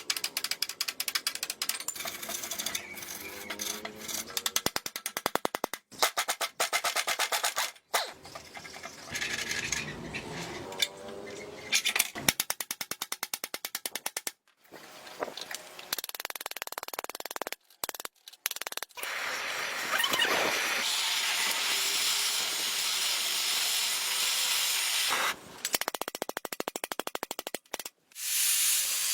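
Repair-work tool sounds cut together in short bursts: long runs of rapid ratcheting clicks, broken by sudden stops, with a steady hiss in the second half, over background music.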